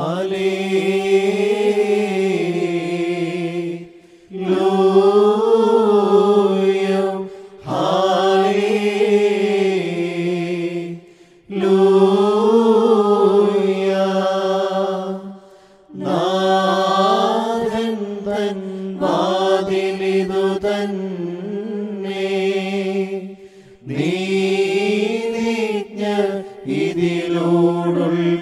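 Unaccompanied liturgical chant from the Syro-Malankara Lenten prayer of the hours, sung in short melodic phrases of a few seconds each with brief pauses for breath between them.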